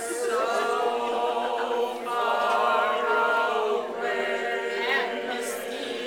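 Women's choir singing, holding long notes in phrases with brief breaks about two and four seconds in.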